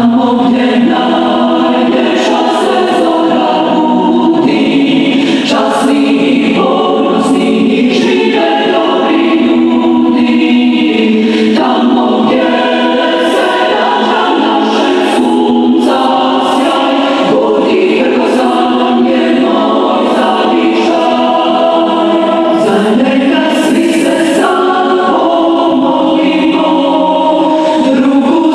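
Choir singing a national anthem.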